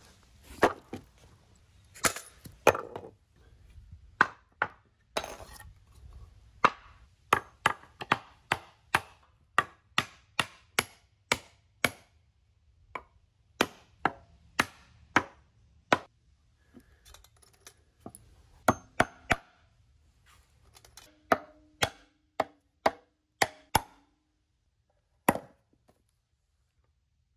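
Hammer driving nails into 2x lumber window frames: many sharp wooden strikes in runs of several blows with short pauses, ending a little before the end.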